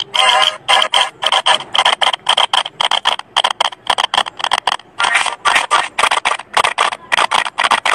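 Harsh, distorted mix of layered cartoon-clip audio chopped into a rapid stutter, about five bursts a second.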